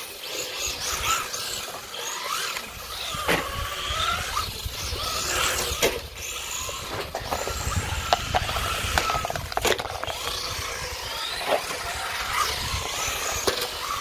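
Two Traxxas 4-Tec radio-controlled cars, one brushless and one with the stock motor, racing: their electric motors and drivetrains whine up and down in pitch as they accelerate and brake, with rubber tyres scrubbing on concrete. Several sharp knocks as the cars hit plastic cones.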